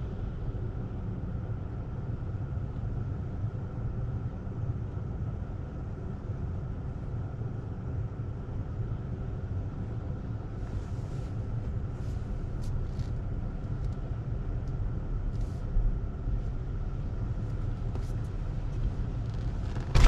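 Car running, heard from inside the cabin as a steady low rumble, with a few faint ticks and a small bump in the second half.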